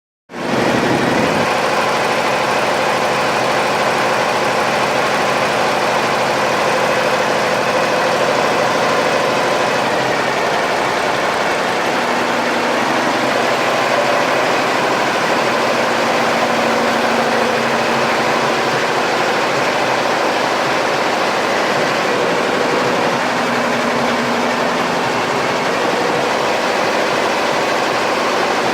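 Embroidery machine running steadily as it stitches, a continuous mechanical whir with a slight change in its tone about twelve seconds in.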